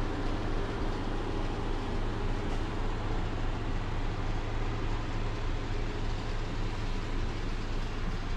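Steady machine hum with a continuous hiss, unchanging throughout.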